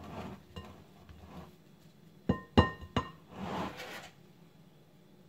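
A spatula stirs and scrapes thick semolina dough in a glass mixing bowl. About two and a half seconds in it knocks three times against the glass bowl, and each knock leaves a brief clear ring. A short scrape follows.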